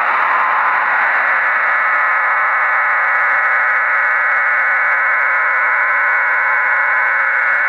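HM01 Cuban numbers station received on shortwave, sending its digital data signal: a steady, unbroken buzzing hiss made of many stacked tones.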